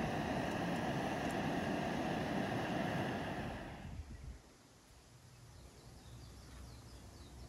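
Liquid boiling hard and sizzling in a black iron frying pan over a campfire: a loud, steady hiss that fades out about four seconds in. After that there is a quiet outdoor background with a few faint bird chirps.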